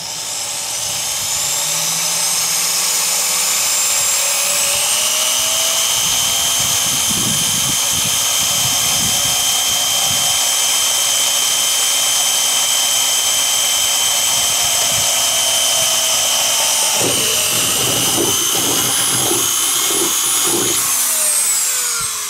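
Corded Makita half-inch-chuck drill spinning up to speed and running steadily as a small pilot bit cuts through the thin sheet-steel floor of a pickup bed. There is rough chatter from the bit biting the metal about a third of the way in and again in the last few seconds, then the motor winds down at the end.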